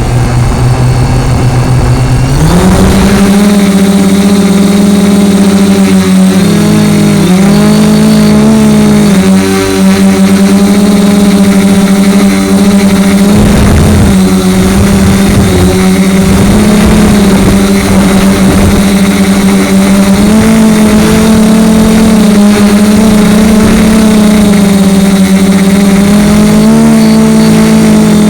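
DJI Flame Wheel F450 quadcopter's brushless motors and propellers, heard from a camera mounted on the frame: they start up, step up in pitch about two seconds in as it lifts off, then hold a loud steady hum whose pitch wavers up and down as the motors adjust in flight.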